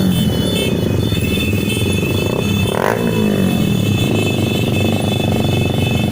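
Several motorcycle engines running and revving together in a convoy, their pitch repeatedly rising and falling.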